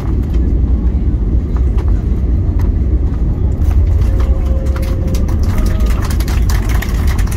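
Airbus A321neo cabin noise as the airliner rolls along the runway after landing: a loud, steady low rumble from the engines and wheels on the runway. Many small rattles and knocks come in from about halfway through.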